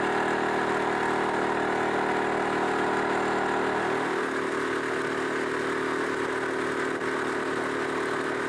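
Boat engine running steadily under way, its pitch dipping slightly about four seconds in.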